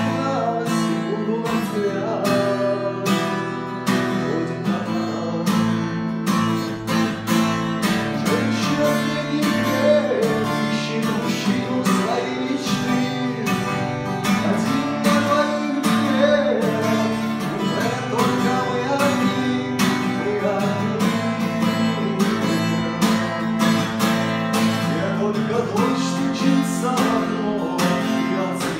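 Acoustic guitar strummed in a steady rhythm of chords, accompanying a song.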